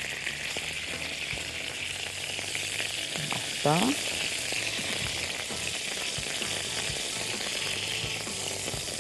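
Cow trotters sizzling as they are sautéed in ghee in a frying pan, a steady frying hiss.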